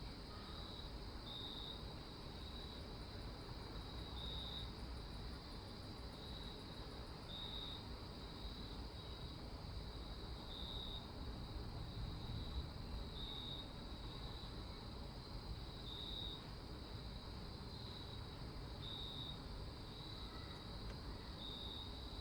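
Crickets chirping: short, high chirps repeating every second or so, some louder and some fainter, over a steady low background hiss.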